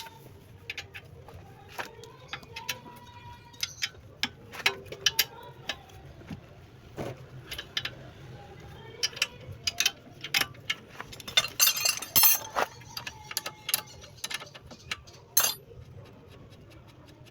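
Irregular metallic clinks and knocks, like hand tools striking and handling metal parts, with a loud cluster of them about twelve seconds in.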